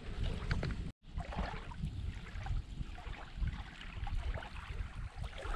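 Small waves lapping and splashing at the lake's edge, with gusty wind rumbling on the microphone. The sound drops out for an instant about a second in.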